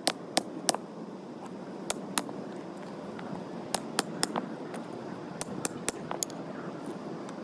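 Hammer strikes: about a dozen sharp hits in quick groups of two or three, over a steady low rumble.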